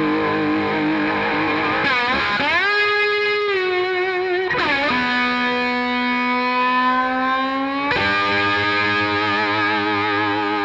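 Music led by a distorted electric guitar, with sliding pitch bends about two seconds in and again near the middle, then a long held note that starts to waver near the end.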